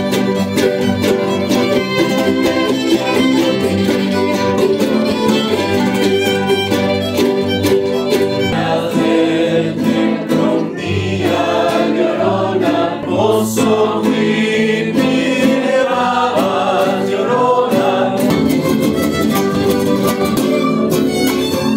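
Music: a full track with instruments and singing.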